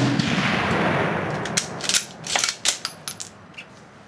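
The fading echo of a Mosin-Nagant M44 carbine shot dies away over about a second and a half. A quick run of sharp metallic clacks follows as the bolt is worked to eject the spent case and chamber the next round.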